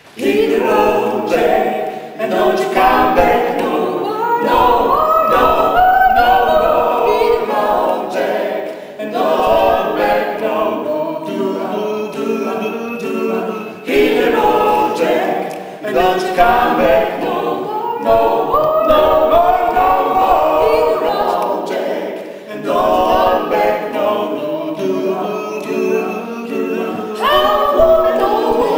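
Mixed vocal ensemble of five singers, men and women, singing a cappella in harmony, entering together at the start and continuing in phrases with brief pauses between them.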